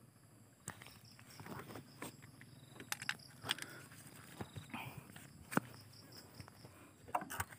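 Footsteps and rustling through dry grass and brush: irregular crunches and snaps. Faint high chirping repeats in short runs in the background.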